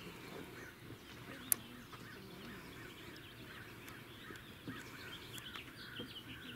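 Small birds chirping, many short calls overlapping, over faint outdoor background noise, with one sharp click about one and a half seconds in.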